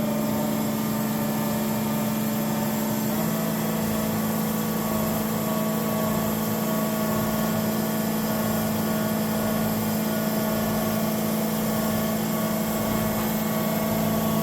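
Marvel 25 APC programmable vertical bandsaw running with a steady machine hum. A second, lower tone joins about three seconds in.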